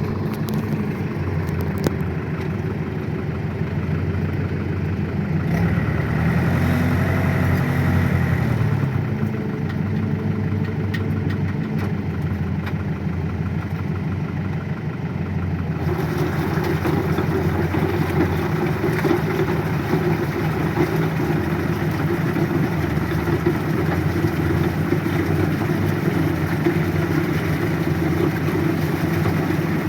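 Rice-paddy tractor engine running under load as the tractor works to pull itself free of the mud. The pitch rises about six seconds in and drops back near nine seconds, and from about sixteen seconds the engine runs louder and fuller.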